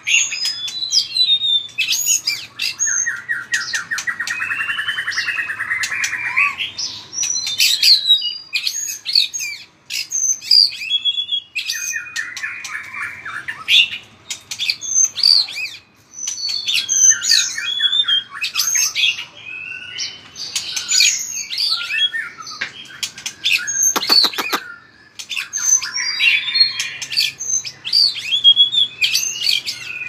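White-rumped shama singing a loud, varied song of clear whistled phrases and quick sweeping notes, broken several times by fast rattling trills. A short run of sharp clicks comes about four-fifths of the way through.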